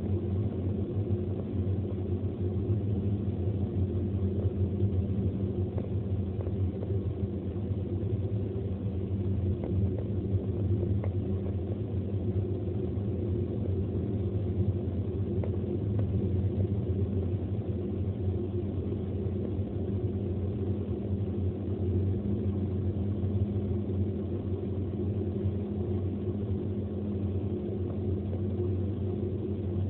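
Steady low drone of a car cruising at highway speed, heard from inside the cabin: engine and tyre road noise holding an even pace throughout.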